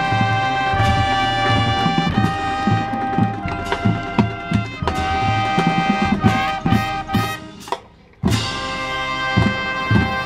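High school marching band playing: sustained brass chords over drum hits, breaking off briefly about eight seconds in, then coming back in together.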